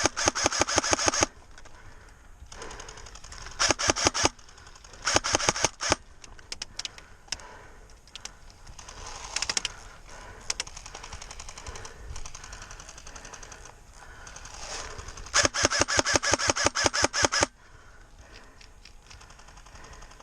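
An airsoft rifle firing rapid bursts of evenly spaced shots. A burst comes right at the start, short bursts follow a few seconds later, and a longer, loud burst of about two seconds comes past the middle. Fainter bursts of fire from other players sound in between.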